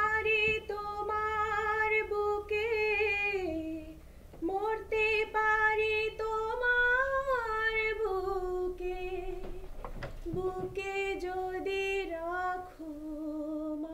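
A woman singing solo and unaccompanied: long held notes with a slight waver, in three phrases with short breaks about four and ten seconds in.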